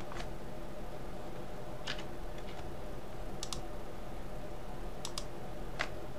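Scattered clicks of a computer mouse and keyboard, some in quick pairs, as the knife tool is used in 3D modelling software. A faint steady low hum runs underneath.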